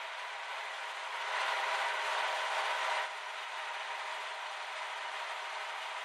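Bandit 1850 wood chipper's Caterpillar diesel engine running steadily. It gets louder from about a second in, then drops back abruptly about halfway through.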